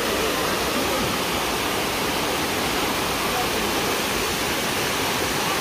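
Steady rush of Dunn's River Falls, water pouring down its stepped rock cascades into the pool below.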